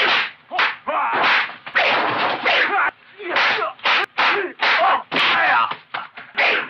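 Dubbed kung fu film fight sound effects: a rapid run of swishing swings and slapping punch hits, about two a second, mixed with short shouts from the fighters.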